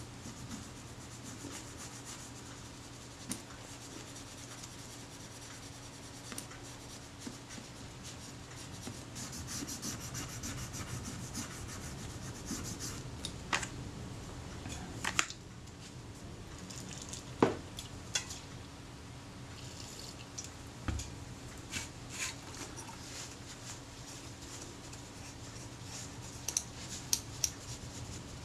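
Old leatherette adhesive being scraped and rubbed off a metal camera body: a faint scratchy rubbing broken by scattered sharp clicks and taps, over a steady low hum.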